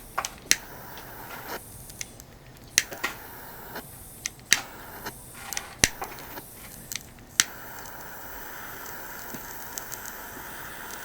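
About a dozen sharp, irregular clicks and clinks over a steady hiss; the hiss drops out for several seconds in the middle and comes back near the end.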